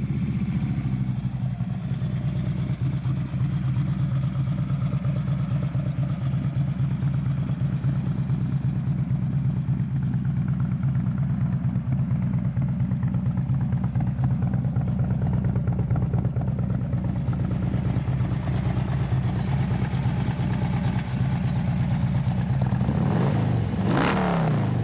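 Harley-Davidson CVO Ultra Limited's Screamin' Eagle 110 cubic-inch fuel-injected V-twin idling steadily, with a brief rise and fall in pitch near the end.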